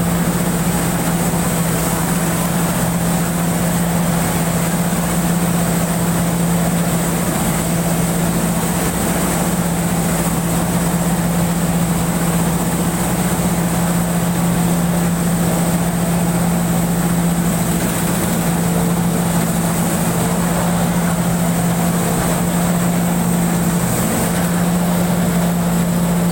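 Pan Charoen-built rice combine harvester running steadily while harvesting. Its engine gives a constant low hum with a steady high whine above it.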